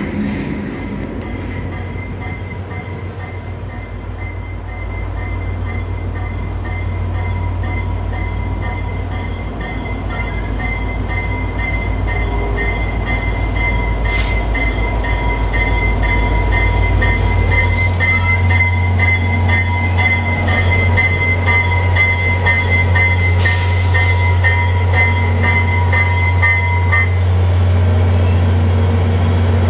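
VIA Rail F40PH-2 (GPA-30H) diesel locomotive drawing slowly into the station, its engine rumbling steadily and growing louder as it comes near. A bell-like ringing runs alongside and stops a few seconds before the end.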